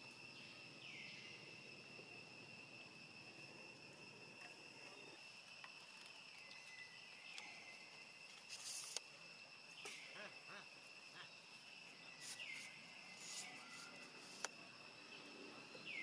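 Faint insect chorus, a steady high-pitched drone, with a short falling note that comes back every few seconds and a few brief rustles and clicks.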